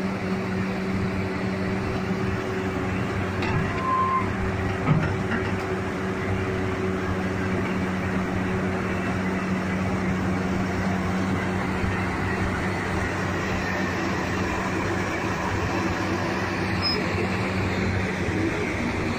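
Diesel engine of a Lonking CDM6365 crawler excavator running steadily at an unchanging speed, back in operation after standing unused for many years. A short knock comes about five seconds in.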